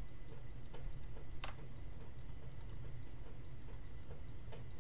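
Irregular light clicks and taps of a stylus writing on a tablet screen, over a steady low hum.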